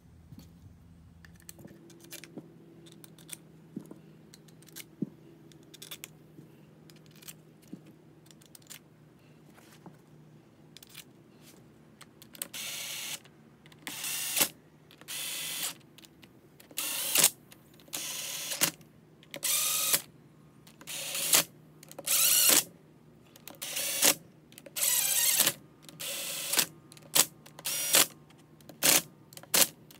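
Cordless drill-driver spinning bolts into a 62TE transmission's solenoid pack and valve body in repeated short runs, about one a second, starting about twelve seconds in; the runs get shorter and quicker near the end. Before that, only faint clicks and taps.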